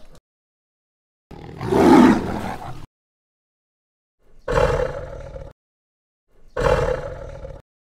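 Tiger roaring three times, each call about a second long with dead silence in between; the last two calls sound alike, with a steady held tone.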